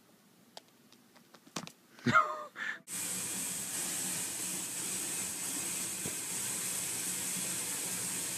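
A few faint taps, then a short loud cry that bends in pitch about two seconds in. From about three seconds, a bathtub tap runs water into the tub with a steady hiss.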